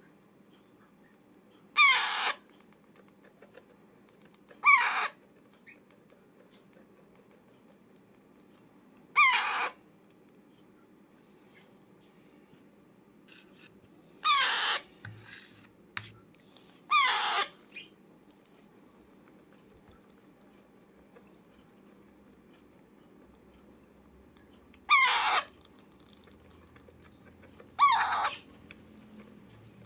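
Young Alexandrine parakeet giving seven loud, harsh calls of about half a second each, spaced irregularly, with a few softer calls in between.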